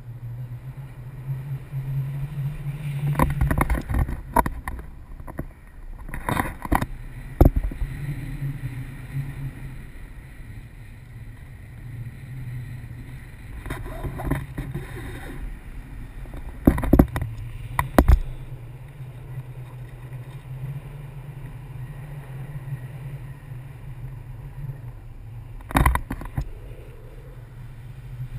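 Wind rushing over a pole-mounted camera's microphone in paraglider flight: a steady low rumble, broken several times by sharp buffeting cracks.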